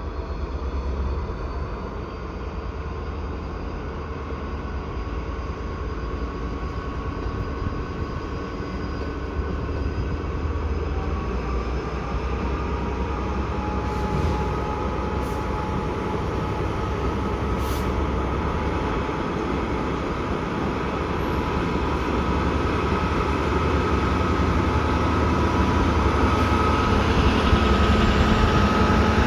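Class 66 diesel-electric freight locomotive, with its two-stroke V12 diesel engine, working hard as it hauls a heavy freight train. A deep engine drone, with steady whining tones joining about a third of the way in, grows louder as the locomotive draws near.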